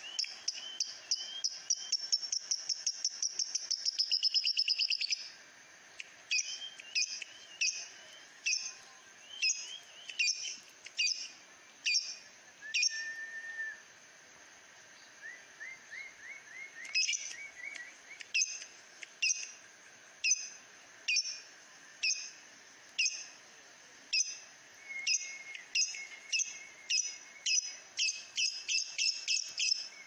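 Masked lovebird (blue mutation) calling: a rapid chattering run of sharp, high chirps for the first five seconds, then single shrill chirps about once a second. After a short lull in the middle, the chirps quicken again near the end.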